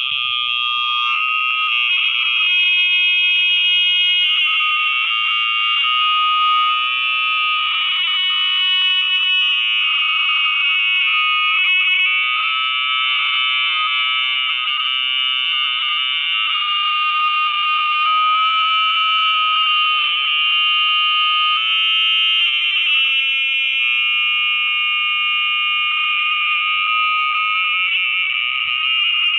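Audio feedback from nested phone screen recordings playing back into each other, heard as a loud, steady, high-pitched squeal. It is a mix of held tones that waver slightly, like a howling alarm.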